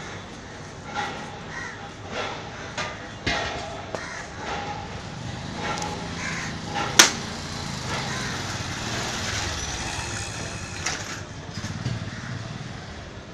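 Birds calling repeatedly with harsh caws, mostly in the first few seconds, over street background noise with a low rumble through the middle. A single sharp click about seven seconds in is the loudest sound.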